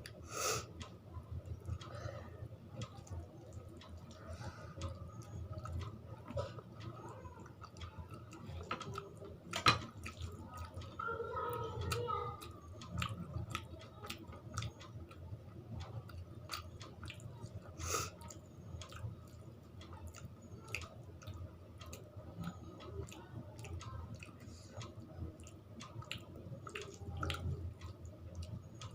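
Close-up chewing and wet mouth sounds of a person eating rice with curry and dal, with many small smacks and clicks. One sharper click comes about ten seconds in.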